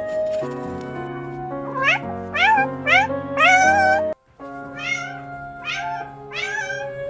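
A cat meowing repeatedly over background music: four short meows that rise in pitch, the last one longer and wavering, then a brief cut to silence, then four more meows.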